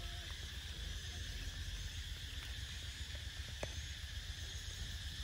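Outdoor garden ambience: a steady insect hum over a low rumble, with a couple of faint short chirps and a single click a little past halfway.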